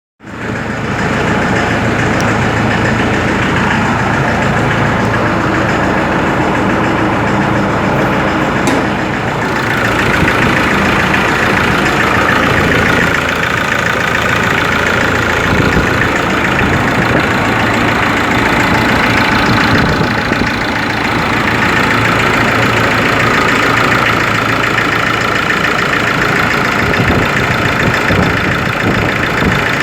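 Ford Ranger 3.0 turbodiesel engine idling cold, with the abnormal engine noise it makes when cold, a fault that mechanics have not been able to trace.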